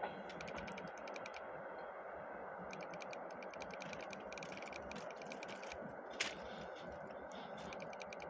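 Faint steady rumble of an ER9M electric multiple unit running away down the line, with runs of rapid high clicking and one sharp click about six seconds in.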